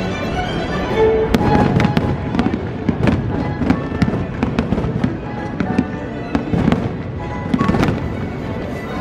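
Fireworks going off in a rapid, irregular series of bangs and crackles, with music playing underneath.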